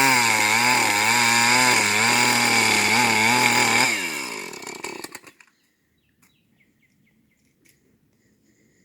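Two-stroke chainsaw running fast, its pitch dipping and recovering. About four seconds in, the engine dies on its own and the revs fall away within about a second.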